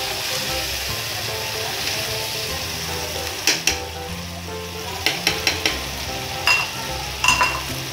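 Mutton karahi gravy sizzling steadily in hot oil in a nonstick pan while a metal spoon stirs it. A few sharp clinks and scrapes of the spoon against the pan come around the middle and near the end, some ringing briefly.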